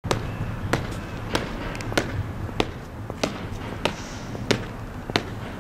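Boot heels striking concrete in a steady marching step, nine sharp footfalls about three every two seconds.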